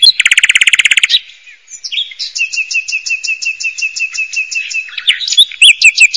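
Birds chirping: a fast high trill about a second long, then a run of quick, evenly spaced high chirps, louder near the end.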